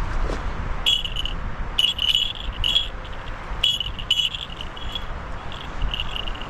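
Small bells hanging from a tree tinkling in short clusters of high, clear ringing, several times over, while the wind rumbles on the microphone.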